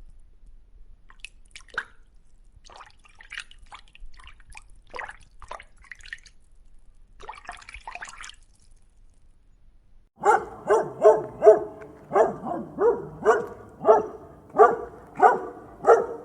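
A dog barking over and over, in evenly spaced barks at about one and a half to two a second, starting about two-thirds of the way in. Before that there are only faint scattered clicks and drips.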